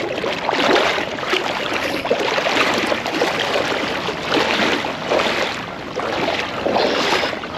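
River water rushing and splashing steadily close by.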